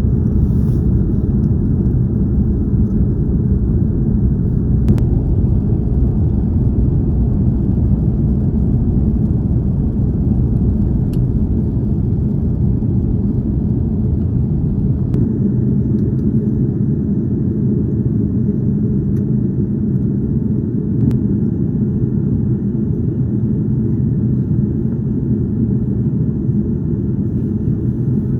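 Steady low rumble of engine and airflow noise inside the cabin of an Airbus A330-300 airliner in flight, heard at a window seat during the descent.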